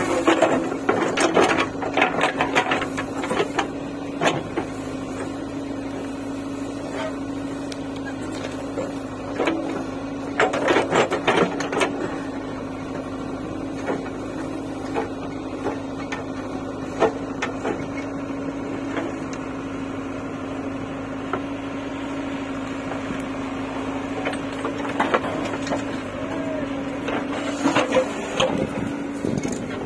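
JCB 3DX backhoe loader's diesel engine running steadily as it works its hydraulics. Over it come bursts of crunching and scraping from the digging bucket tearing through soil and brush: in the first few seconds, again around ten seconds in, and near the end.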